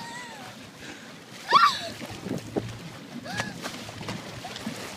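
Water splashing and lapping around a small boat, with three brief high-pitched vocal sounds from children, each rising and falling in pitch; the loudest comes about a second and a half in.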